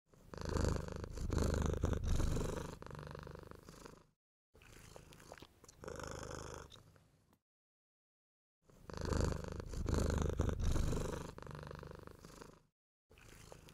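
Domestic cat purring loudly in stretches of a few seconds, broken by short silent gaps, and the same passage then plays again.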